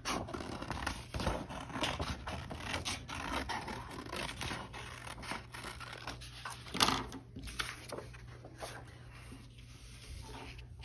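Scissors cutting through a sheet of heavy white paper: a run of short snips with paper rustling between them. The snipping thins out and gets quieter near the end.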